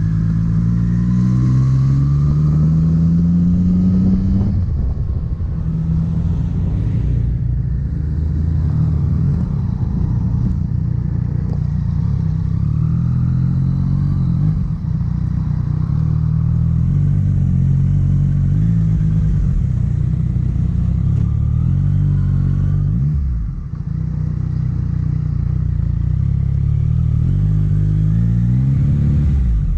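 Motorcycle engine heard from the rider's seat while riding on the road: it rises in pitch as the bike accelerates in the first few seconds, runs at a steady cruise with small pitch steps, drops briefly as the throttle is eased about two-thirds of the way through, and climbs again near the end.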